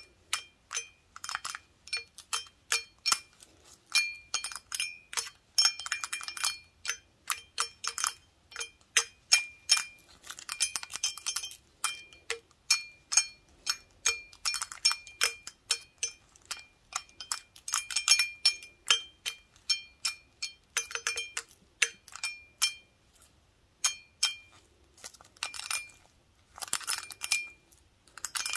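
Wooden toothpicks held in gloved fingers tapping an empty glass beer stein: irregular light clinks, each with a short glassy ring, broken up by quick runs of rapid taps.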